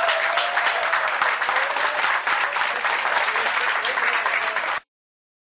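Crowd applauding, with voices calling out over the dense clapping; the sound cuts off abruptly near the end.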